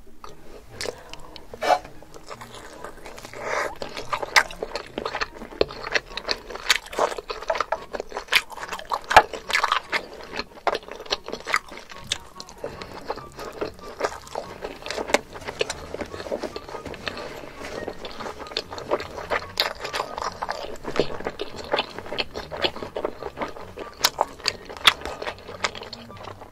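Close-miked eating: a person biting and chewing food, an irregular run of sharp clicks and crunches.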